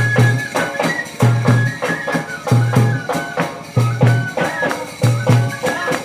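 Live band-party music: a drum beats paired deep strokes about every 1.3 seconds under quick rhythmic percussion and a high, stepping melody.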